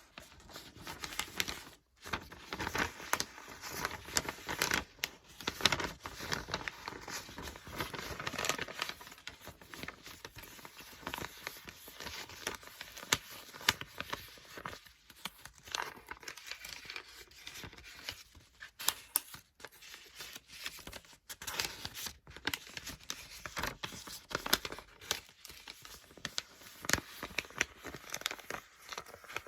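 Paper book pages being turned and flipped: a continuous run of papery rustles with many crisp snaps.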